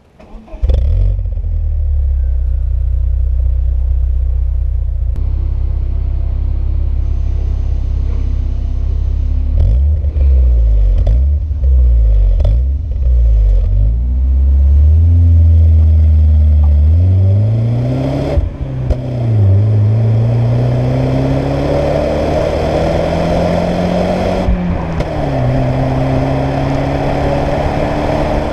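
BMW E36 318i four-cylinder engine through a Supersprint exhaust: it idles, is blipped several times with quick rises and falls in pitch, then accelerates hard with a rising note, dropping briefly at two gear changes.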